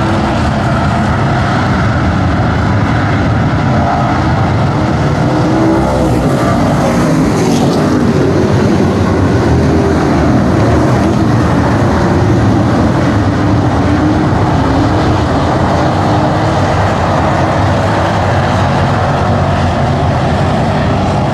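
A pack of dirt-track street stock race cars running at race pace, many engines revving together without a break. The engine note rises and falls around the middle as the cars sweep past.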